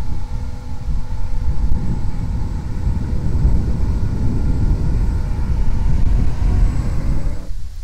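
Remote-controlled carp bait boat's brushless inrunner motor (2845, 3100KV) running at full throttle, a steady thin motor whine under a heavy low rumble of wind on the microphone. The sound drops away abruptly near the end.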